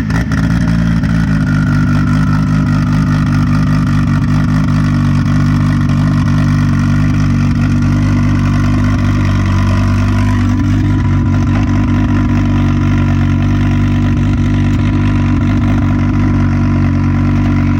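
Audi 2.2-litre turbocharged 20-valve five-cylinder engine running loud and steady at a constant speed, with a high whine that falls in pitch over the first few seconds.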